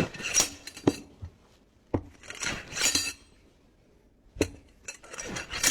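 Gravity slide-hammer firewood splitter with a forged manganese-steel hammer head being worked on a log. Irregular sharp metallic clinks and knocks as the hammer strikes, with short noisy stretches between the strikes.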